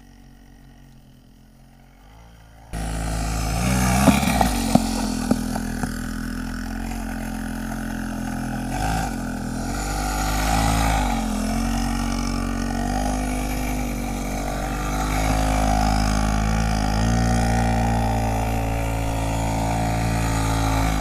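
Pocket bike's small engine starts up suddenly about three seconds in and keeps running as it is ridden, its pitch rising and falling, with a few sharp clicks just after it starts.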